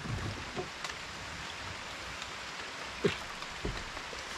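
Steady hiss of light drizzle falling on the river, with two short sounds about three seconds in.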